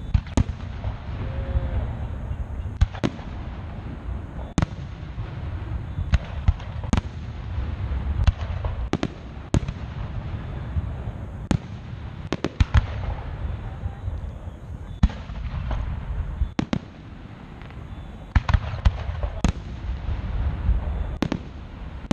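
Aerial fireworks shells bursting in an irregular stream of sharp booms over a continuous low rumble, with dense flurries of reports about halfway through and again a few seconds before the end.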